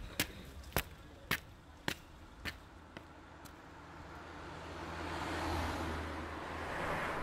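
A car passing by, its rushing noise swelling to a peak about five to seven seconds in and easing off. Before it, a run of sharp taps about twice a second fades away over the first couple of seconds.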